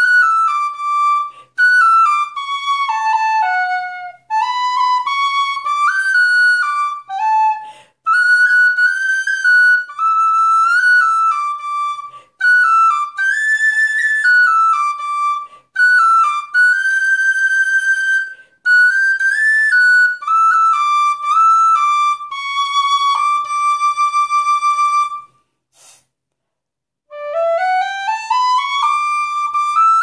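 High D tin whistle with a flat fipple and a blackwood fipple block, playing a melody of stepped notes with quick ornaments and a few long held notes with vibrato. Near the end it breaks off for a moment, then climbs a rising scale from its lowest note.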